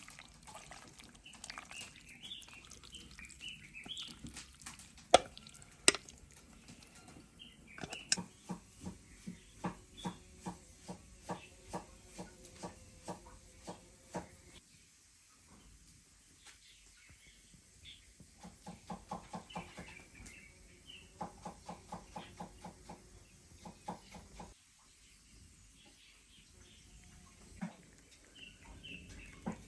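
Pestle pounding roasted chilies, garlic and seasoning into a wet mash in a mortar: steady strokes about two a second, in two long runs with a pause between. Birds chirp briefly now and then.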